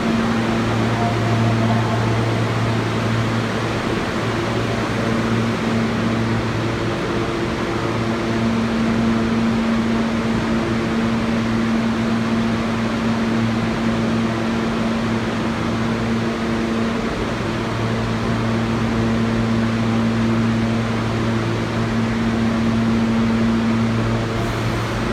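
Air-handling fans humming steadily, under a low drone and a higher tone that fades in and out.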